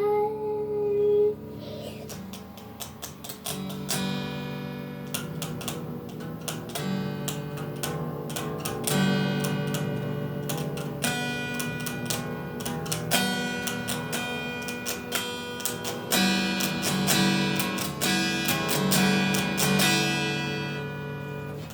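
A held sung note trails off about a second in, then an acoustic guitar plays on its own, picking out notes over strummed chords.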